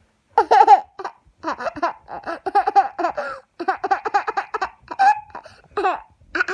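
A young child laughing: runs of quick giggles with short breaks between them.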